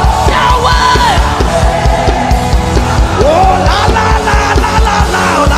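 Live worship band music with a steady, driving beat, and voices rising in long sliding cries over it.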